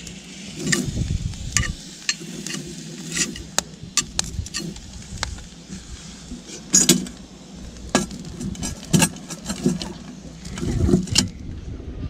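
A knife and metal utensil clinking and scraping against a pan and metal pots over a campfire, in irregular knocks, with low rumbling bumps now and then.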